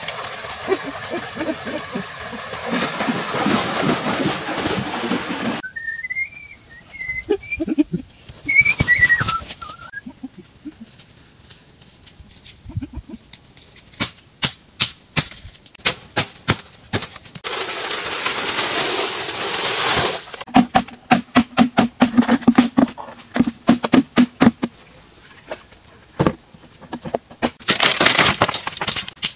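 Water splashing and pouring in a shallow muddy pool, then after a cut a bird's whistled call that rises and falls, twice. After that comes a long run of sharp chopping strikes on bamboo, a few a second, with a burst of rustling about two-thirds of the way through and hollow-sounding knocks near the end.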